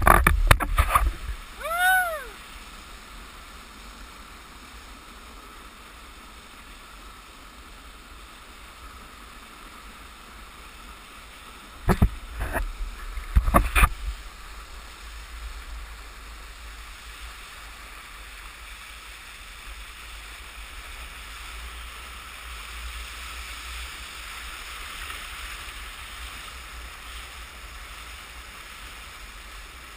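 Steady rush and gurgle of water from the bore tide wave as a stand-up paddleboard rides it. Loud knocks in the first second, a short rising-and-falling tone about two seconds in, and two clusters of sharp knocks about twelve and fourteen seconds in.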